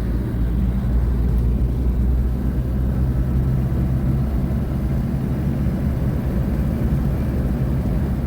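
Toyota Land Cruiser driving: a steady low engine and road drone.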